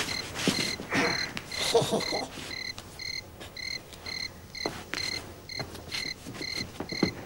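A cricket chirping in short, evenly spaced chirps, about two a second. Soft rustles and a few light knocks of movement come under it.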